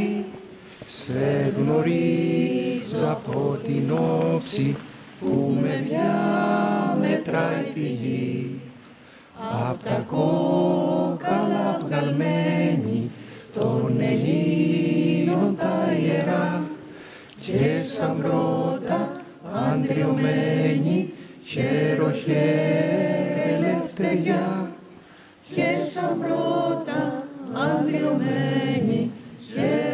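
A small group of men and women singing together unaccompanied, in phrases broken by short pauses.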